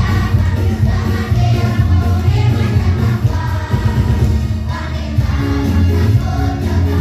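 Choir singing over a musical backing track with a heavy, steady bass line.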